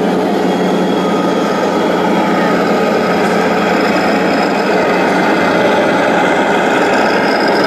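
Engine-sound module of a radio-controlled Scania model truck playing a steady diesel-engine running sound, thin and without deep bass.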